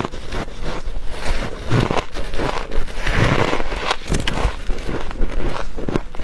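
Dry freezer frost being bitten and chewed: a run of irregular crunches.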